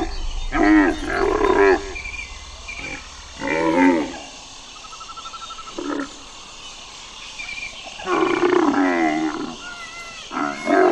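Camel calling: a series of loud, pitched calls that rise and fall in pitch, each lasting about half a second to a second, with short pauses between them.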